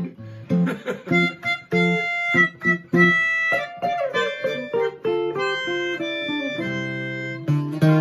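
Jazz on a hollow-body electric guitar, plucked single notes and chords, with a melodica playing along; near the end the notes are held longer.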